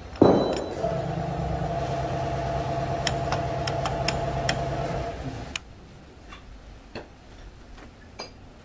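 A sharp clank, then a steady mechanical hum that runs for about five seconds and cuts off. A few light clicks follow.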